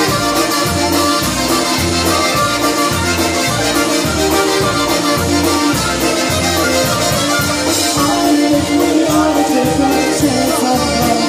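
Live polka band playing, with trumpets and accordion over a steady bass beat.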